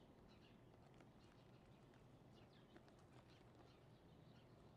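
Near silence: faint outdoor background with scattered, faint, short high chirps and ticks.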